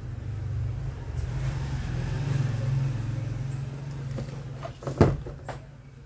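A motor vehicle going by: a low engine rumble that swells and then fades. Near the end come two sharp knocks, the louder one about five seconds in.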